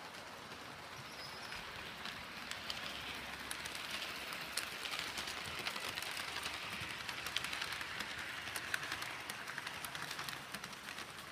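Model train running on the layout track: an IHC steam locomotive pulling passenger cars, giving a steady rolling whir with many small clicks from the wheels on the rails. It grows louder through the middle as the cars pass close, then eases off near the end.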